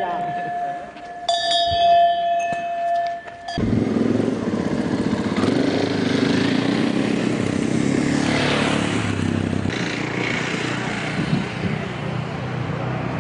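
Light metallic clinking over a steady ringing tone, then, after an abrupt cut about three and a half seconds in, off-road rally motorcycle engines running, with one revving up in a rising sweep a few seconds later.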